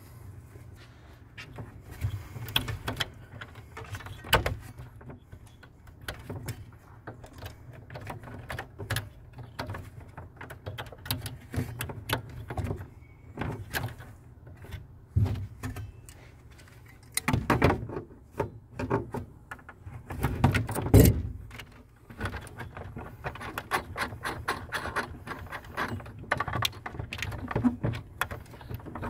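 Scattered clicks, taps and knocks of a gloved hand and tools working wires loose from the terminals of a metal RV automatic transfer switch box, over a steady low hum. The loudest clatter comes in two bunches about two-thirds of the way through.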